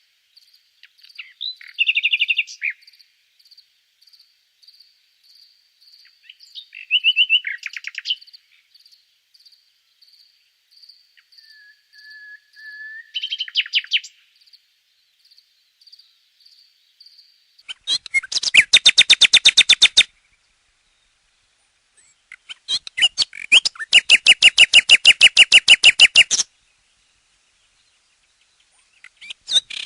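Common nightingale singing: scattered varied phrases over a soft note repeated about twice a second, a short level whistle, then two loud, rapid trills lasting about two and four seconds, each followed by a sudden silence.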